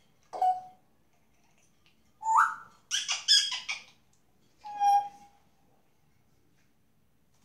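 African grey parrot whistling and calling in separate bursts: a short note, a rising call about two seconds in, a quick cluster of shrill chirps, then one clear whistle near the end.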